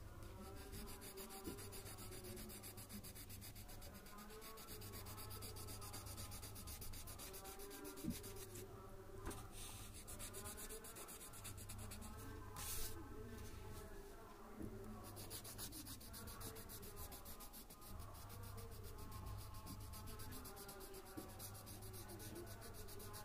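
Coloured pencil shading on paper: a faint, steady scratching of the lead rubbing over the sheet.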